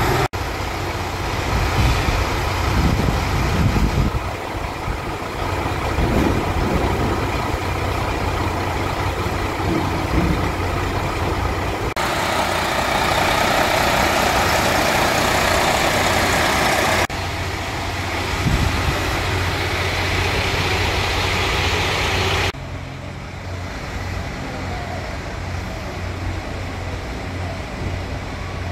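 KiHa 185 diesel railcar idling at a standstill: a steady low engine hum. In the middle there is a louder, hissing rush for about five seconds, and the sound changes abruptly at several points.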